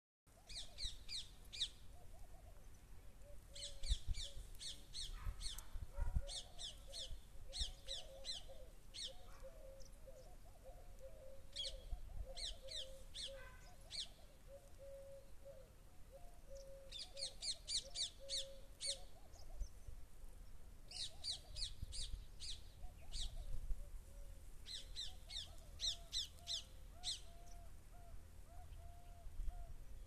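Birds calling: bursts of rapid, short, high chirps, each burst lasting a second or two and recurring every few seconds, over a lower wavering call that keeps going throughout. A few low thuds come near the start.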